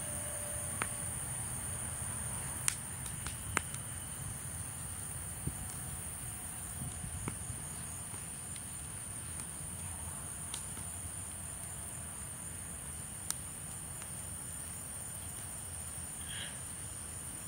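Wood fire of broken tree branches burning, giving a sharp crackle or pop every second or few, the loudest a few seconds in. Crickets keep up a steady high chirring behind it.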